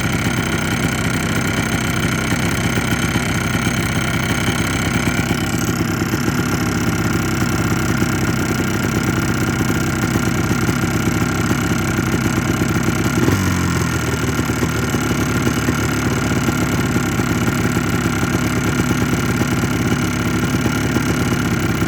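Yamaha Blaster's 195 cc single-cylinder two-stroke engine idling steadily with a light knocking, piston slap, which the owner takes as a sign that a top-end rebuild is due soon. The idle note shifts a little about two-thirds of the way through.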